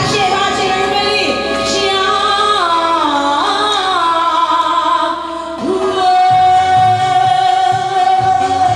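A woman singing a song into a microphone over backing music. She sings quick ornamented runs of notes, then holds one long note from about six seconds in.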